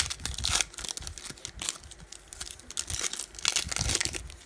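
Foil wrapper of a trading-card pack being torn open and crinkled by hand, in irregular crackling bursts, loudest near the start and again about three and a half seconds in.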